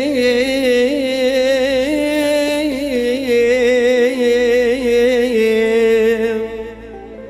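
A male singer holds a long, ornamented note of a mawwal through a microphone, the pitch wavering in small turns. The voice stops about six and a half seconds in, and plucked oud notes follow.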